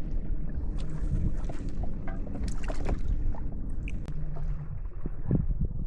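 Low rumble of wind and water around a plastic fishing kayak, with scattered small knocks and clicks.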